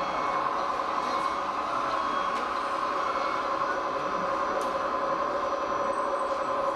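Radio-controlled scale model trucks and construction machines running: a steady whine of small electric motors and gearing.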